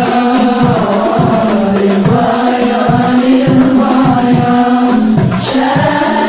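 Group of voices singing a devotional chant in unison over a steady hand-percussion beat.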